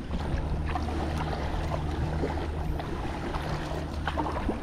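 Kayak paddling on a river: water splashing and dripping from the paddle, with a few light splashes and knocks over a steady low hum.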